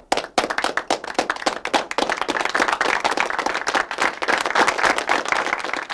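Applause: a few scattered claps that thicken within the first second into dense clapping from many hands.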